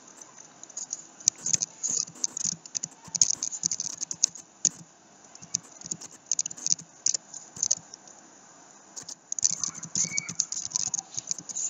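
Typing on a computer keyboard: quick runs of keystroke clicks, thinning out briefly about two-thirds of the way through before picking up again.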